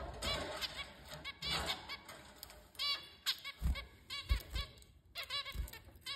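Zebra finches calling: short beeping calls in quick runs, repeated every second or so, with a few soft low thumps between them.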